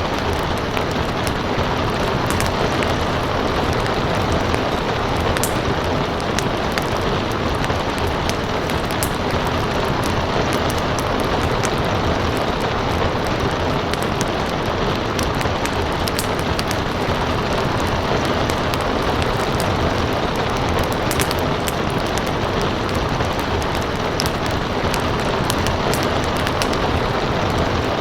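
Steady rain with a crackling wood fire: a dense, even hiss of rain under frequent small, sharp crackles and pops scattered throughout.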